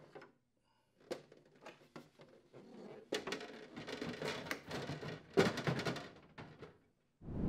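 Plastic refrigerator ice bucket being handled and slid along its rails into the freezer door: a few light clicks, then plastic scraping and rattling with two sharp knocks, the louder one about five seconds in as the bucket is pushed home.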